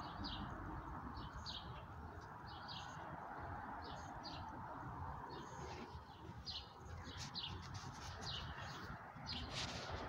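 Songbirds singing in the trees: short, high chirps, often in quick pairs, repeated throughout over a steady low background noise.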